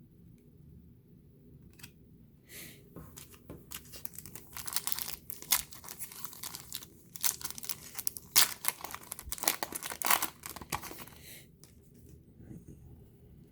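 Plastic wrapper of a trading-card pack being torn open and crinkled by hand: irregular crackling tears start a couple of seconds in and are densest through the middle, then stop a couple of seconds before the end.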